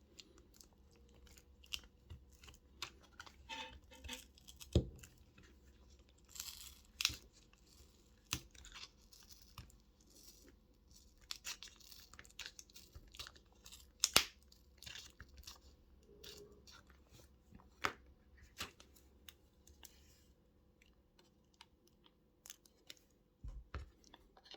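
Plastic card worked under a phone battery to cut through its adhesive: faint, irregular scraping and tearing with scattered sharp clicks and a few louder snaps.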